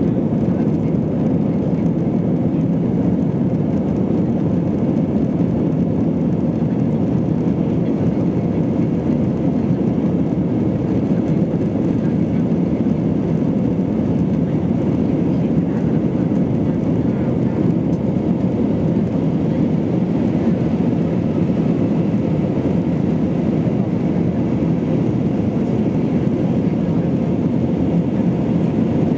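Steady low drone inside the cabin of an Airbus A320-232 climbing after takeoff: its IAE V2500 engines at climb power and the air rushing past the fuselage.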